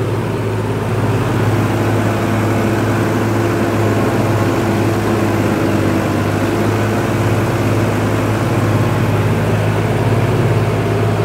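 Sonalika 60 RX tractor's diesel engine running steadily as the tractor drives across a field, heard close up from the driver's seat.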